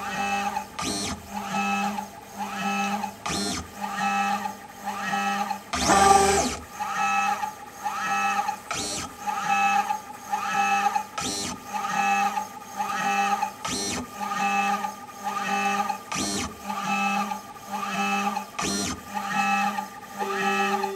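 Three-axis pick-and-place gantry running a repeated cycle: its drive motors whine, rising and falling in pitch as each stage speeds up and stops, about one move a second, with short clicks between moves. One louder, noisier move comes about six seconds in.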